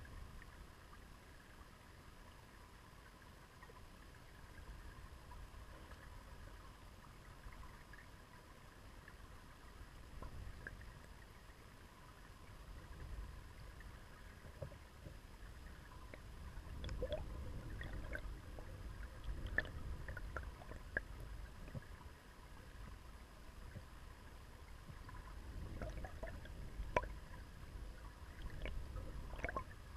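River water flowing over a pebble bed, heard through an underwater camera: a low, muffled rumble that swells twice in the second half, with scattered small ticks and clicks.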